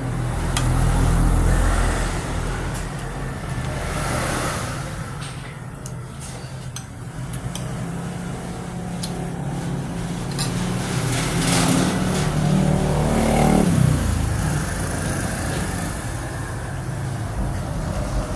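Motor vehicle engines running close by, a steady low hum that swells and eases, with one engine's pitch falling about thirteen seconds in as it slows.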